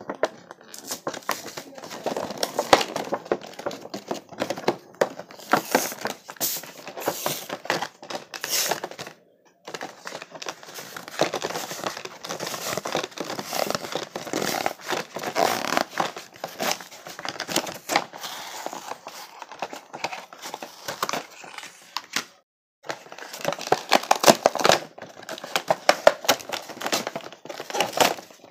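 Toy monster truck pack's cardboard and plastic blister packaging being opened by hand: a continuous run of crinkling, crackling and tearing, broken twice by short silences about a third and three quarters of the way through.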